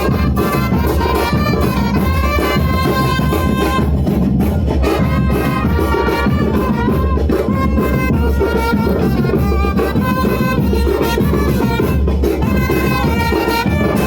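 Music with brass and drums, playing steadily.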